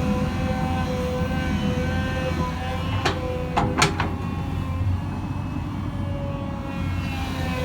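Hyundai Robex 220-9SH excavator running, its engine rumbling under a wavering, multi-toned hydraulic whine. A quick cluster of three or four sharp knocks comes about three seconds in.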